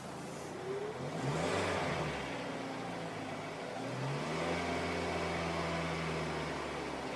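Hyundai ix35's 2.0-litre G4KD four-cylinder petrol engine, cold, being revved: a short blip about a second in, then raised again and held at higher revs from about four seconds in. The owner hears an unexplained knock from it at around 3000 rpm.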